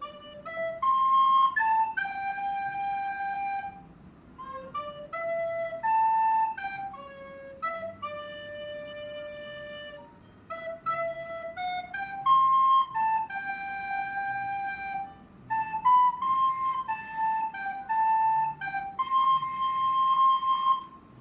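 A recorder played solo: a slow melody of held notes in several phrases, with short breaths between them.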